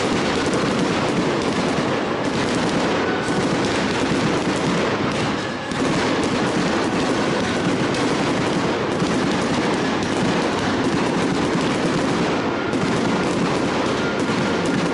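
Fireworks display: aerial shells bursting in a continuous barrage of rapid, overlapping bangs and crackle, like machine-gun fire, easing only briefly about five and a half seconds in.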